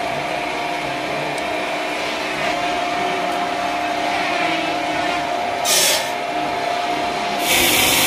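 Large band sawmill running with a steady hum and a constant whine. A short hiss comes about six seconds in, and a louder steady hiss starts near the end.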